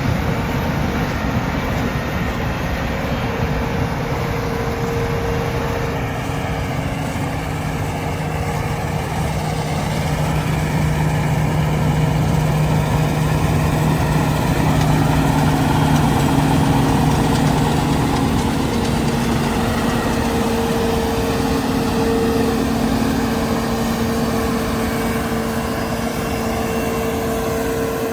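John Deere T670 combine harvester running steadily while harvesting: a continuous engine and machinery drone with several steady hums that shift in pitch, growing a little louder around the middle.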